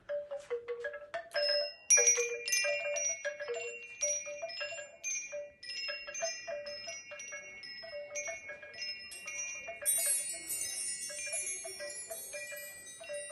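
Hanging wind chimes jangling: bamboo tubes knock together with short, hollow clonks throughout, mixed with the lingering ring of metal chimes. The ringing grows denser and higher from about ten seconds in.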